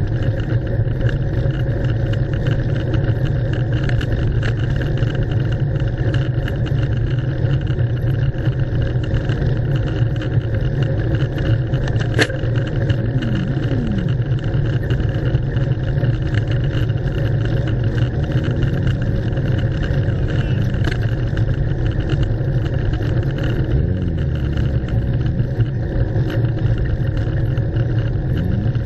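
Steady, heavy wind rumble on the microphone of a camera riding on a moving bicycle, mixed with the noise of slow car traffic alongside, and one sharp click about twelve seconds in.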